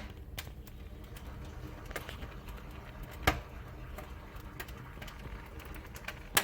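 Wood fire crackling in a cast-iron fireplace: scattered irregular crackles and clicks, with a sharper pop about three seconds in and another at the end, over a faint low hum.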